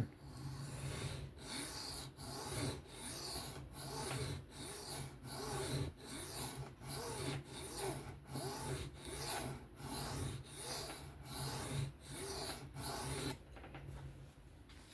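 Folding-knife blade being drawn in steady, even passes across a sharpening plate, a scraping stroke roughly every two-thirds of a second; the strokes stop shortly before the end.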